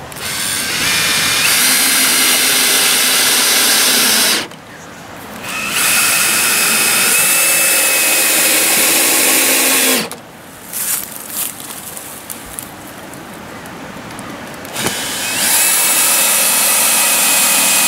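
Cordless drill-driver driving wood screws through a wooden batten into pre-drilled holes, in three long runs of steady motor whine of a few seconds each, with short pauses between them.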